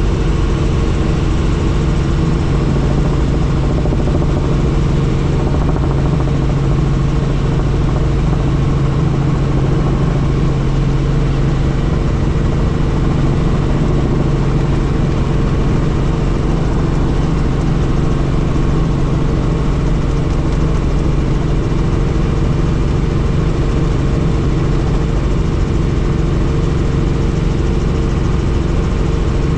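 Helicopter in flight: steady engine and rotor noise, a constant loud drone that does not change.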